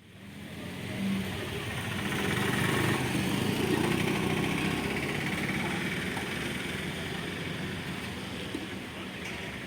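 An engine running steadily amid a broad rumble and hiss, fading in from silence at the start and easing slightly toward the end.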